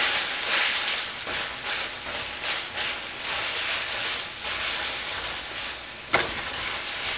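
Spaghetti sizzling in a skillet of butter, wine and lemon sauce while tongs toss and stir it, the hiss swelling and easing with each stroke. A sharp click about six seconds in.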